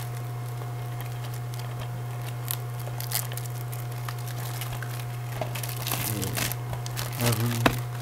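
Plastic DVD case and packaging being handled: scattered crinkles and clicks, busiest near the end, over a steady low hum.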